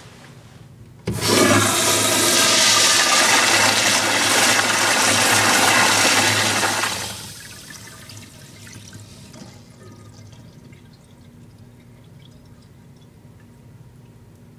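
American Standard Afwall wall-hung toilet flushing on its flush valve: a loud rush of water starts suddenly about a second in, runs for about six seconds, then stops sharply, leaving a faint trickle in the bowl.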